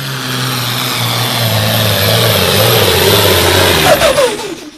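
Light limited super stock pulling tractor's engine running hard under load while dragging the sled: a steady low drone under a hiss that grows louder. Near the end a few falling whistle-like tones sound and the noise fades out quickly.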